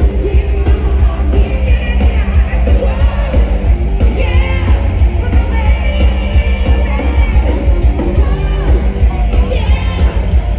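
Loud band music with a singer over a heavy bass.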